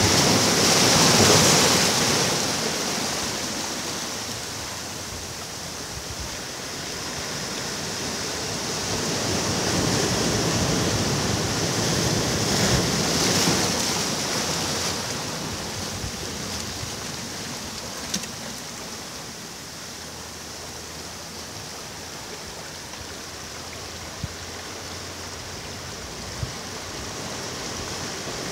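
Sea waves breaking and washing up a beach, the surf swelling and ebbing: a loud wave about a second in, another around the middle of the first half, a quieter lull after that, and a new wave building at the end.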